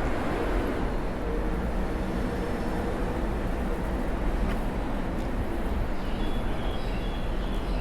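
Steady wind and road rumble picked up by an Insta360 X5 action camera's microphones while riding along a road, with no clear engine note. A few faint short high chirps come in near the end.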